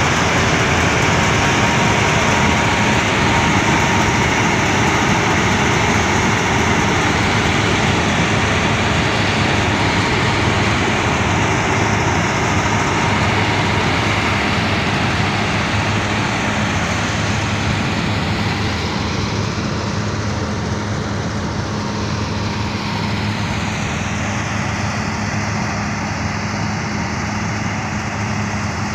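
Crop King combine harvester's engine and machinery running steadily as it drives off across the field. It grows slightly fainter as it moves away.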